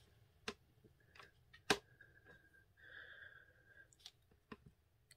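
Light taps and clicks of a mounted rubber stamp being pressed and worked onto a plastic ink pad to ink it, with one sharper knock about one and a half seconds in.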